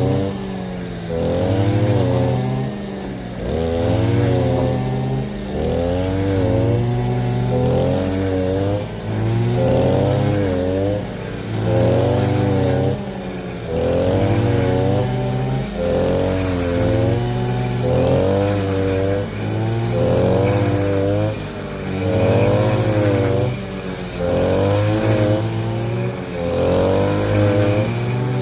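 An engine revving up and down over and over, swelling and dropping about once every two seconds.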